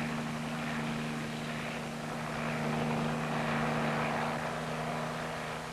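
Piasecki H-21 tandem-rotor helicopter lifting off and hovering low: the steady drone of its radial engine and rotors, with two low steady tones, swelling slightly midway.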